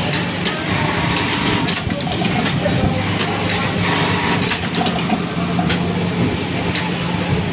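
Automatic button feeder's vibratory bowl buzzing steadily, its hum running under the clatter of the Juki button-sewing machine. Two short hissing bursts come about two and five seconds in.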